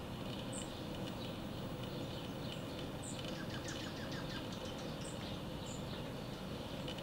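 Dark-eyed juncos giving short, high chip calls several times, with a quick run of rapid notes about three seconds in, over a steady background hiss.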